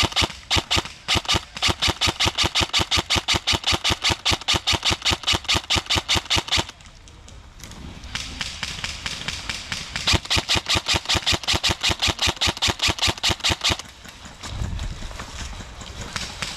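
Airsoft gun firing long strings of rapid, evenly spaced shots. The firing breaks off about seven seconds in, resumes more quietly a second later, and stops again shortly before the end.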